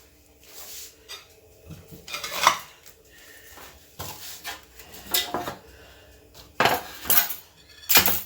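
Kitchen utensils clinking and scraping against dishes in a handful of irregular knocks, the loudest near the end.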